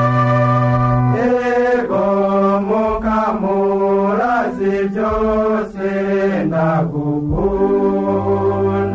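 Music: a slow chanted melody, its notes changing about every half second to a second, over sustained low notes.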